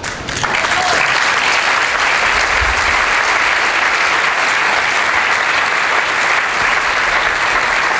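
Audience applauding: dense, steady clapping that swells up just after the start and holds.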